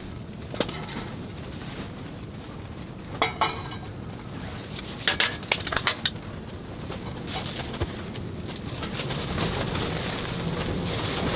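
Light clinks and knocks of tableware and utensils in a few short clusters, over a steady background rush.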